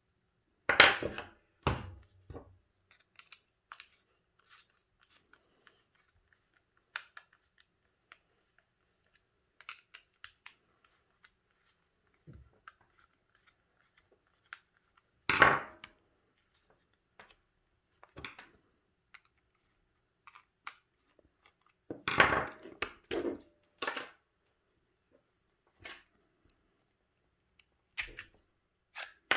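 Handling noises as a plastic cordless-drill battery pack is unscrewed with a screwdriver and opened on a wooden table: scattered clicks and knocks of plastic, screwdriver and small parts. The louder knocks come about a second in, near the middle, in a quick cluster later on, and again near the end.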